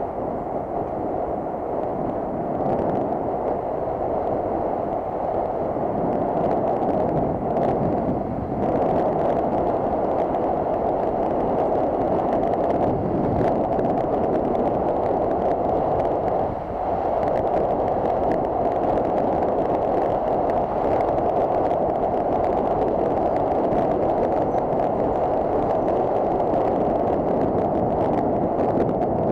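Steady rush of wind and rolling noise on a bicycle-mounted camera's microphone while riding, with faint scattered ticks and rattles.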